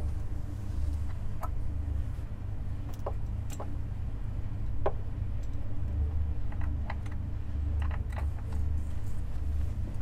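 Scattered light clicks and rattles of AudioQuest Type 5 speaker cable and its connectors being handled and fitted at a speaker's terminals during a cable swap, over a steady low room rumble.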